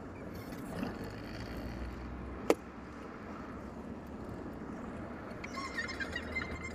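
Steady low hum of a car's engine and road noise, heard from inside the moving car. A single sharp click comes about two and a half seconds in.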